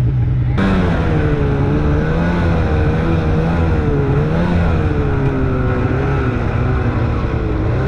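Snowmobile engine running steadily under throttle while riding, its pitch wavering a little up and down. The sound changes abruptly about half a second in.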